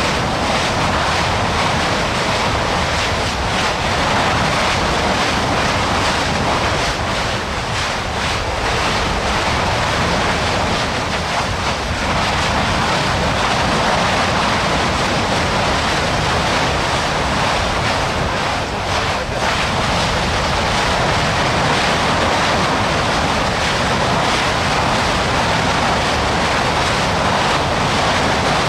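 A loud, steady rushing noise with no pitch or rhythm, like wind or surf.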